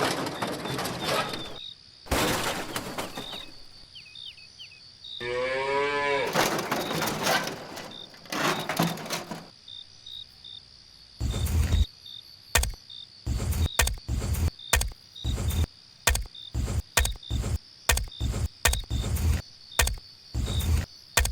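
A cow mooing once, a drawn-out call a few seconds in, over steady cricket chirping. In the second half comes a run of sharp, irregular knocks and thuds.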